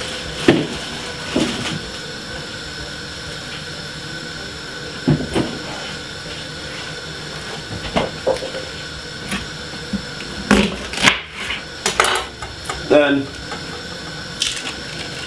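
Scattered light clinks and knocks of kitchen handling, utensils and ingredients against dishes and a metal baking tray, bunched together about ten seconds in, over a steady faint hum.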